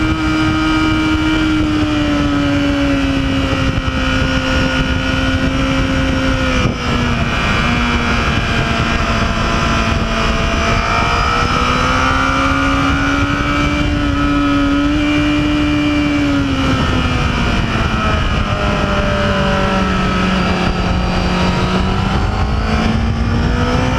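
Honda CBR1000RR inline-four sport bike engine running hard at track speed, heard from onboard over a rush of wind. Its pitch rises and falls with the throttle, with a quick shift about seven seconds in, revs dropping low in the later part and climbing again near the end.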